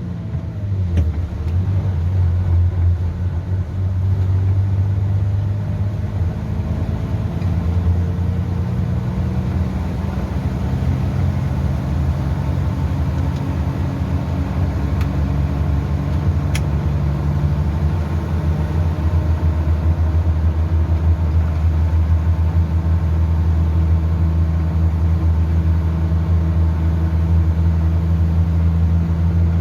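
Dump truck's diesel engine running under load while driving, a steady low drone whose pitch shifts briefly in the first couple of seconds, then holds.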